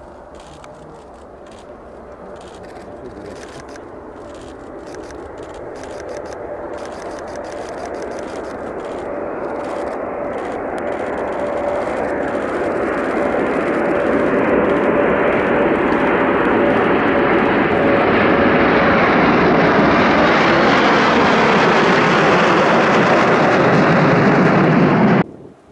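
Blue Impulse Kawasaki T-4 jet trainers, their engine noise growing steadily louder over about fifteen seconds as they approach, with a steady whine that fades. Then the pitch falls as they pass. The sound cuts off suddenly near the end.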